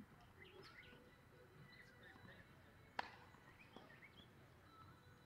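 A tennis ball struck once by a racket about three seconds in, a single sharp crack, followed by a fainter knock. Birds chirp faintly throughout.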